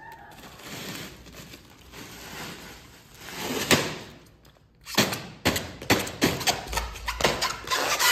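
Plastic crinkling and a run of sharp clicks and knocks as bottled water is handled at an open plastic cooler, busiest from about five seconds in.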